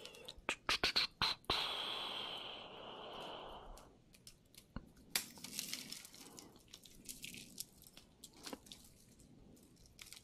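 Costume jewellery being handled and sorted: a quick run of sharp clicks and clinks in the first second and a half, then about two seconds of rustling, then scattered light clicks and taps.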